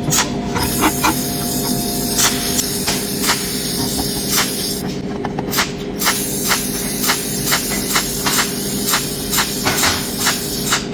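Welding hiss with sharp regular clicks, about two to three a second, that break off briefly about five seconds in.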